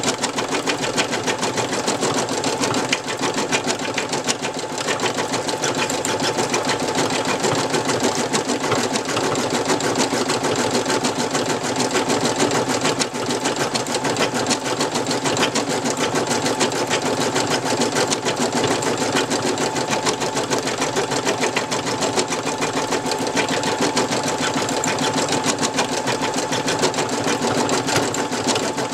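Brother NV2600 embroidery machine stitching a design at speed: a fast, even needle clatter that does not let up, over a faint steady whine.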